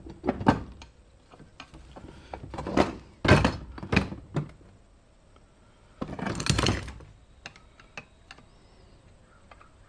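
Heavy cast-iron parts of a wood planer/jointer being handled and set down: a series of thunks and knocks, a longer scraping clatter about six seconds in, then a few light clicks.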